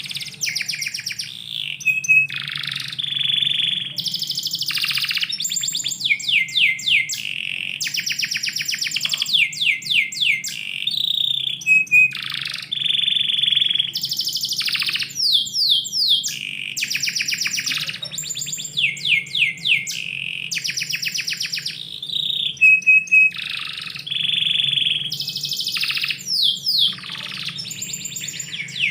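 Domestic canary song: a long unbroken run of fast trills and rolls, rapid series of falling notes and short whistled notes, with barely a pause between phrases.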